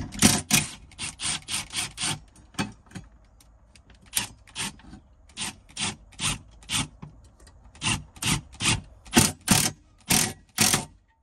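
A hand tool rasping in short, repeated strokes, about three or four a second, with a brief pause about three seconds in.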